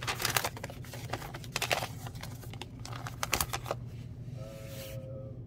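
A large folded paper instruction leaflet being unfolded and refolded by hand: crisp rustling and crinkling of paper in three short bursts.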